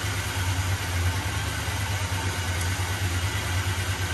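The 1981 GMC pickup's engine idling steadily, a low even hum with a fine regular pulse.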